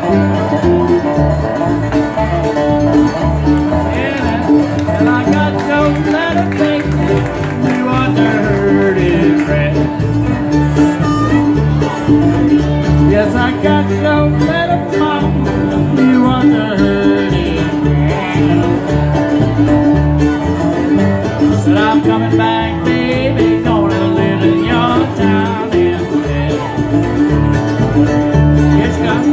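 Live acoustic blues band playing an instrumental break: a dobro taking sliding lead notes over strummed acoustic guitar and upright bass.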